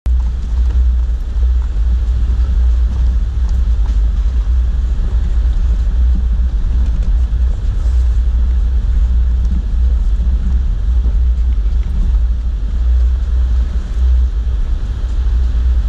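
Vehicle driving slowly on a rough gravel road, heard from inside through a windshield-mounted camera: a steady, heavy low rumble of engine and tyres, with a few faint ticks from the gravel.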